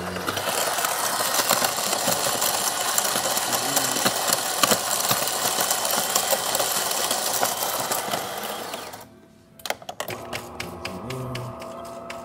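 Newly replaced burr grinder of a De'Longhi Magnifica S bean-to-cup espresso machine grinding coffee beans: a loud, dense, crackling whir that stops abruptly about nine seconds in. After a brief pause the machine runs on with a quieter steady hum and rapid ticking, about five ticks a second.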